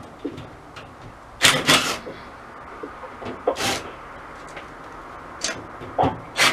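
Cordless drill driving screws out of sheet-metal ceiling panels, running in several short bursts of under a second each.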